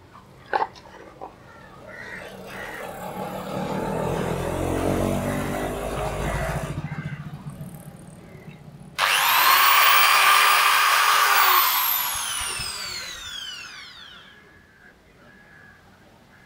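A power tool's electric motor starts suddenly and runs steadily for about three seconds, then falls in pitch as it winds down after switching off. Before it, a low rumbling mechanical sound swells and fades.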